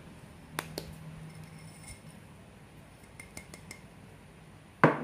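A small glass cup clinking and tapping lightly against a mixing bowl as granulated sugar is poured and shaken out of it onto eggs: a couple of sharp clicks, a few small taps, then one louder knock near the end.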